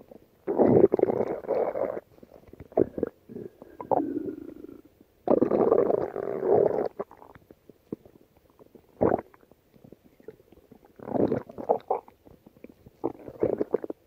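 A stomach growling in a series of separate rumbles: two long ones of about a second and a half near the start and in the middle, and several shorter ones later.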